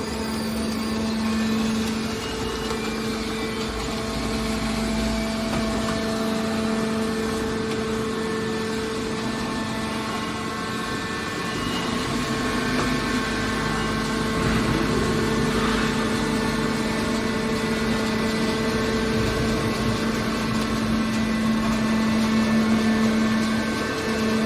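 Hydraulic can baler's motor and pump running with a steady hum.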